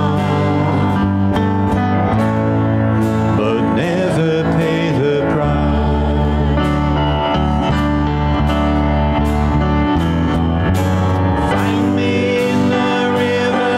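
Church worship music: a band with guitar and bass playing a steady song, with a singing voice.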